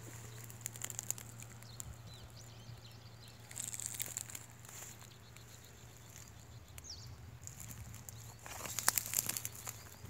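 Footsteps rustling and crackling through cut, drying weeds and grass, in two bursts: about three and a half seconds in, and again from about eight and a half seconds. A steady low hum runs under it.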